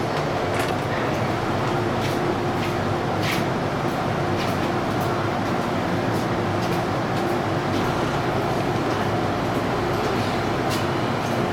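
Subway train standing at a station platform with its doors open: a steady hum from the car's equipment over station ambience, with a few faint clicks.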